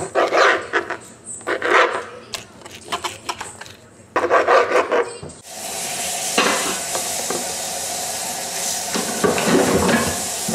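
Kitchen utensils clattering and scraping against pans and dishes for about five seconds. Then comes a steady sizzle of food frying in oil in a pan, starting suddenly.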